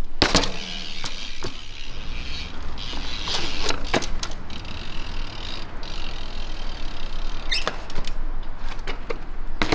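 Street trials bike landing a bunny hop onto a concrete ledge with a sharp knock, followed by a few taps and scuffs of the tyres as it is hopped along the ledge. Another knock comes near the end as it drops back down to the ground.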